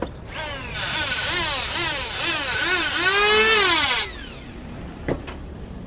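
Electric wood planer motor whose pitch rises and falls over and over, about twice a second, then swells once more and cuts off about four seconds in. A single sharp knock follows about a second later.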